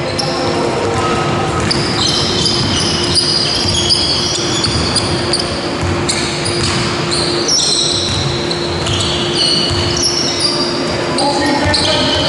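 Basketball game sounds in a sports hall: a ball being dribbled on the wooden court and many short, high squeaks of players' trainers on the floor, with the hall's echo.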